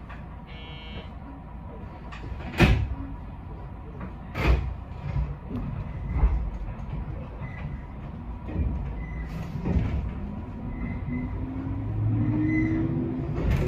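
JR West 221 series electric train heard from behind the driver's cab: a low running rumble with several sharp knocks in the first half, then near the end a rising whine from the traction motors and gearing as the train gathers speed.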